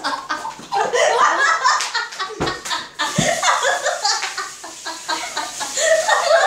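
Children laughing and talking over each other, with two dull thumps a little after two seconds and about three seconds in.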